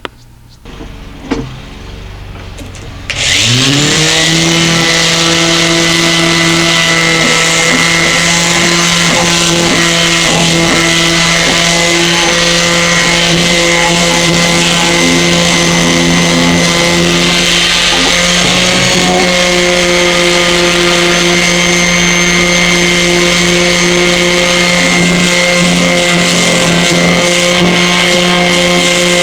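Ryobi RS290G 5-inch random orbital sander switched on about three seconds in: its motor spins up within a second, then runs steadily. It gives a strong hum under a loud hiss from the pad sanding wood.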